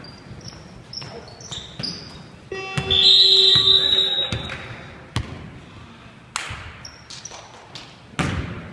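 Basketball game in a gym: sneakers squeaking on the hardwood floor and a basketball bouncing, with a few sharp thuds in the second half. About a third of the way in, a loud held electronic tone sounds for under two seconds.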